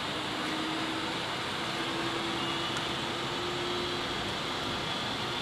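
Steady flight-deck noise of a Boeing airliner lining up on the runway: the air-conditioning hiss and the jet engines running at idle, with a faint steady hum.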